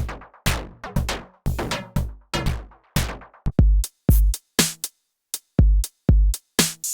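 Drum machine beat run through a bit-crushing effect, chopped into separate hits with silent gaps between them, with heavy kick drum hits in the second half.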